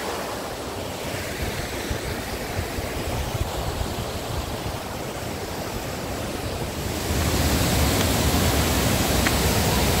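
Steady rush of a mountain waterfall, Turgen's Bear Waterfall, with wind on the microphone adding a rumble; the sound grows louder and heavier about seven seconds in.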